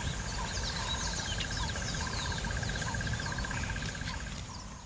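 Bush ambience: several birds calling with short chirps and whistles over an insect's steady, rapidly pulsing trill, with a low rumble underneath. The trill stops near the end as the sound fades out.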